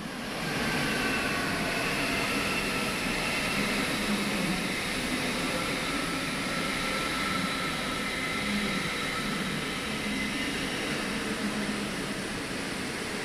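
Train running along the tracks: a steady loud rush of wheel and rail noise with a few faint high whining tones above it.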